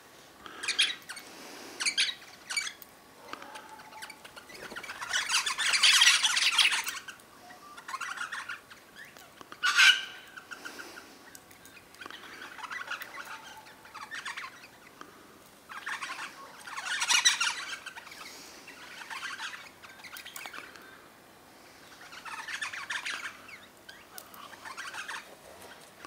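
Wild birds calling in repeated bursts of harsh, chattering squawks. The longest and loudest bursts come about six seconds in and again around seventeen seconds, with a short sharp call near ten seconds.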